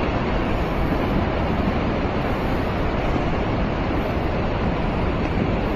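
Earthquake-triggered rockfall sliding down a mountainside: a steady, continuous rumble of falling rock and debris with no separate impacts standing out.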